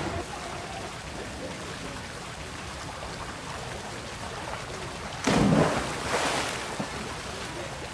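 A child jumping from a diving platform into a swimming pool: one sudden loud splash about five seconds in, its spray falling away over a second or so, over a steady background hiss.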